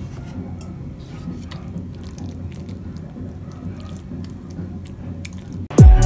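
Sticky, wet squishing and faint clicks of a wooden spatula and metal spoon working through syrup-coated caramelized coconut strands. Near the end, loud electronic music cuts in with a falling bass sweep.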